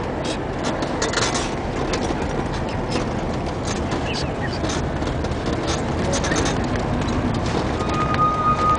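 Steady city traffic and road noise heard from a moving bicycle rickshaw, with frequent short rattling clicks. A steady high tone comes in near the end.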